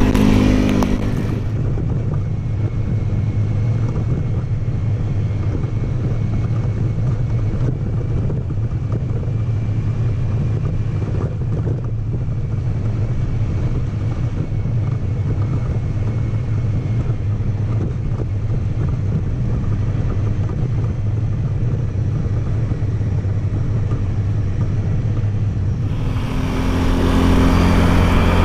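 ATV engine running steadily while riding, a low even drone that holds at much the same pitch.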